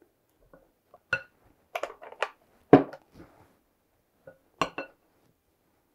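Kitchen utensils knocking and scraping against a glass mixing bowl as thick batter is scraped down: a scattered series of sharp clinks, the loudest just under three seconds in.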